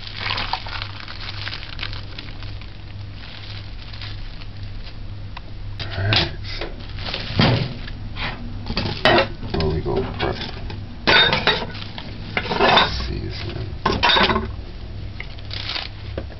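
Ceramic bowls and a kitchen knife being set down and handled on a tiled counter. About six seconds in, a run of sharp knocks and clinks begins, over a steady low hum.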